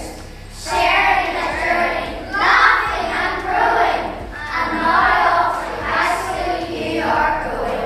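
A group of children singing together in unison, in phrases of a second or two with short breaks between them.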